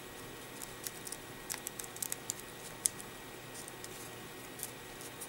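Folded paper modules of an origami bracelet rustling and crackling softly in the fingers as a folded paper tail is pushed into a loop: a scattering of faint, crisp ticks.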